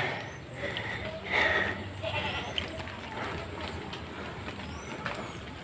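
A farm animal bleating: two short calls about a second and a half apart, over a steady low background.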